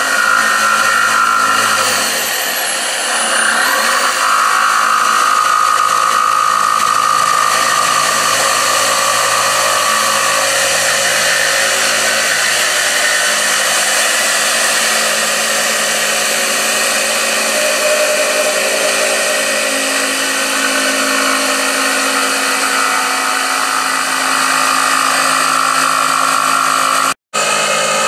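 Corded DeWalt jigsaw fitted with a laminate blade, cutting through a laminate countertop's particleboard core. It runs steadily and loudly, cuts out briefly about a second before the end, then runs again.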